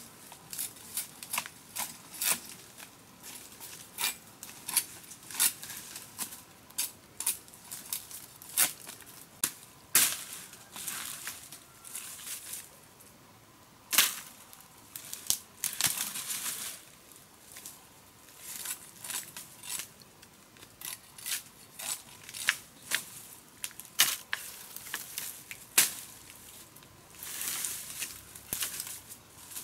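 Dry bamboo leaves and sticks crunching and snapping as they are trodden on and handled. The sound is a string of sharp cracks with a few louder snaps and short bursts of rustling crackle.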